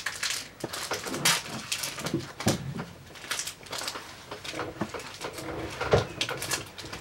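Foil Pokémon booster pack being torn open and handled: irregular crinkling and crackling rustles with sharp clicks, loudest a little after two seconds in and again near six seconds.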